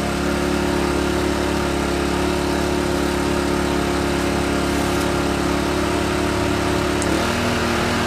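Sportsman 1000 inverter generator running steadily with no load. About seven seconds in, the steady hum shifts to a lower pitch as the window air conditioner's fan is switched on.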